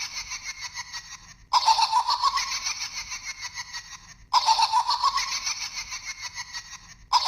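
A high-pitched, rapid giggling laugh played as a looped sound clip. The same burst of giggles cuts off and starts over abruptly about every three seconds.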